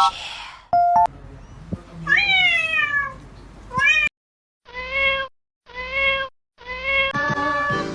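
Domestic cat meowing: one long meow falling in pitch, a short one, then three short, evenly spaced meows about a second apart. A brief electronic chime sounds in the first second.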